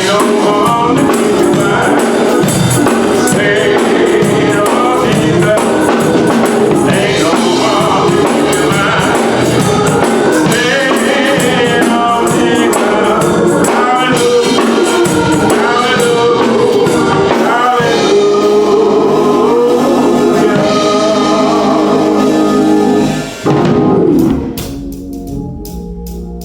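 Gospel choir singing with band accompaniment and tambourine; about 23 seconds in the singing ends and organ chords carry on quietly.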